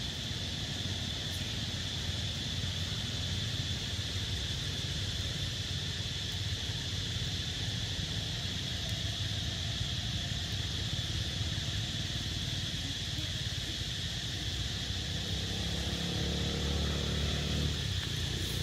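Outdoor ambience: a steady high insect drone over a low rumble, with a motor vehicle's engine growing louder near the end.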